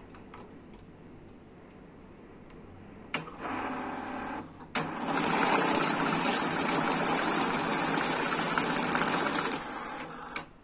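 Korean-made ST-150NV cash counting and sorting machine starting up about three seconds in and running a stack of banknotes through for about six seconds as it counts them and checks them for counterfeits. It stops suddenly near the end.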